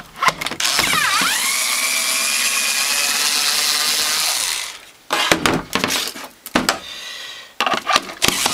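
Cordless drill-driver backing the screws out of a plastic hand mixer housing. The motor whines up to speed and runs steadily for about four seconds, then stops, followed by clicks and knocks of handling.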